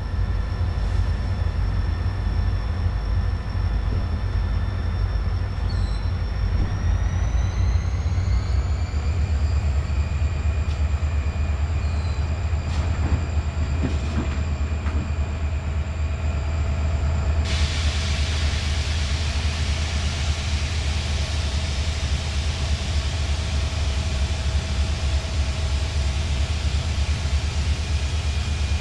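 Approaching freight train led by EMD GP40-2LW and GP40 diesel locomotives, their engines giving a steady low rumble. A steady high whine rises in pitch about seven to nine seconds in, and a hiss joins about halfway through.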